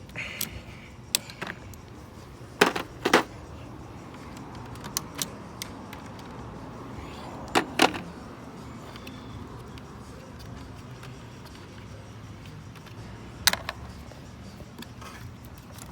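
Hand tools clicking and clacking on metal while the power lead is unbolted from the TIPM fuse box under the hood: about ten scattered sharp clicks, the loudest a pair about three seconds in, another pair about eight seconds in, and one near the end.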